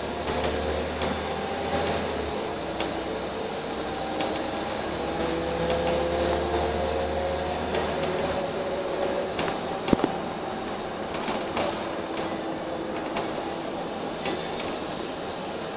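Inside a Wright Eclipse single-deck bus on the move: the drivetrain's whine gliding up and down with road speed over a low engine rumble, with the body and fittings rattling. The low rumble drops away about eight seconds in, and there is one sharp knock about ten seconds in.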